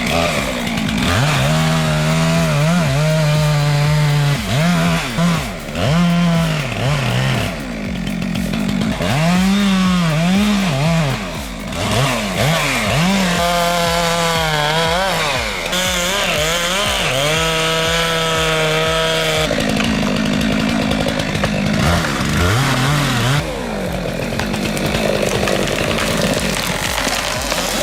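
Chainsaw running and cutting, its engine pitch repeatedly sagging and climbing back as the throttle is worked through the wood.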